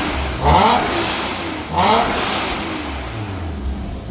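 Toyota 2JZ-GE VVT-i straight-six fitted with Brian Crower camshafts, revved hard in two quick bursts, the engine note rising and then falling away each time.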